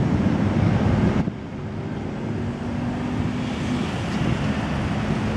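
Road traffic noise with wind rumbling on the microphone; the heavy rumble drops away about a second in, leaving a steadier traffic hum.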